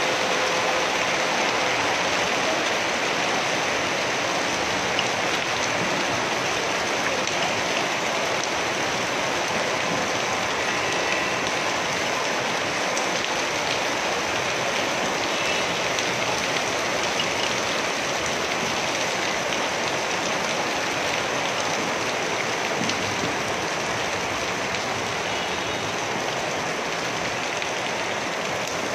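A heavy hailfall, nearly pure hail with little rain, coming down as a dense, steady hiss that eases slightly toward the end.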